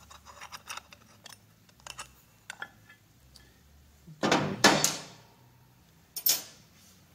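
Small screws and a metal cover being taken off a Monarch 10EE lathe apron with a screwdriver: light metallic clicks. About four seconds in there is a louder clatter of metal parts being set down, with a faint ring after it, and a second shorter clatter near the end.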